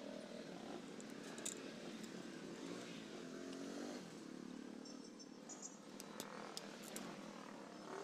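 Faint outdoor background with a vehicle engine running in the distance, its pitch rising and falling, and a few light metallic clicks of a screwdriver and small parts being handled on the engine.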